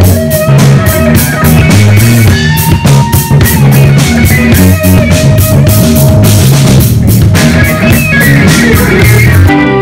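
Live rock music: drum kit and electric guitar playing loud, with the guitar holding long lead notes over the beat. Near the end the drums stop.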